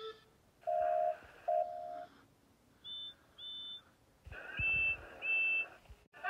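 Animated steam engine whistle sound effects: three pairs of short toots, a lower-pitched pair about a second in, then a high pair, then a louder, slightly lower pair with a low rumble beneath.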